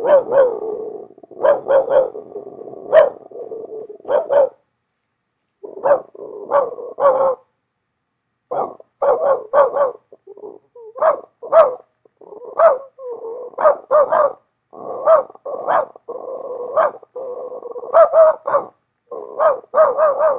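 Dog barking repeatedly in quick runs of two to four sharp barks, with short pauses between runs.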